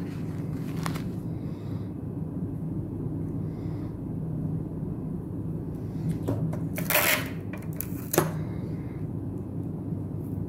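Small handling noises from working on a phone over a steady low hum: a brief scratchy rustle about seven seconds in, then a sharp click just after.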